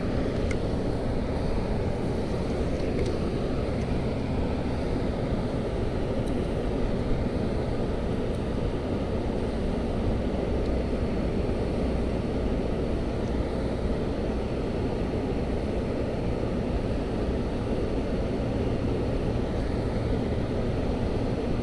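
Steady low wind rumble across the microphone, unchanging throughout.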